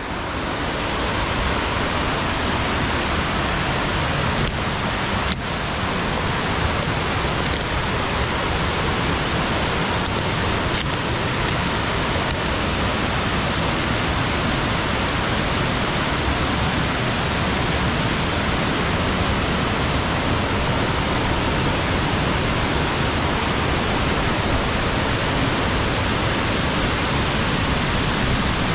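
Multi-tiered cascading waterfall rushing steadily, heard up close.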